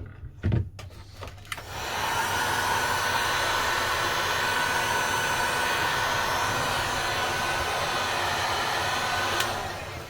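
Heat gun blowing hot air steadily for about eight seconds, switched on about two seconds in and cut off near the end, to soften the adhesive under a phone's back glass. A couple of light knocks come just before it starts.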